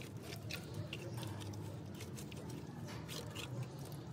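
Wet mud plaster being spread and smoothed by a gloved hand over a sheet-metal roof: a series of short wet smearing strokes over a steady low background hum.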